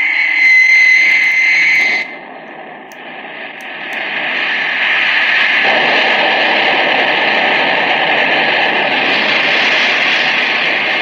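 Rocket blast-off sound effect from an old-time science-fiction radio show, played through a Muzen Cyber Cube Pro Bluetooth speaker. A high steady whine cuts off suddenly about two seconds in, then a hissing roar swells up from about four seconds in and holds.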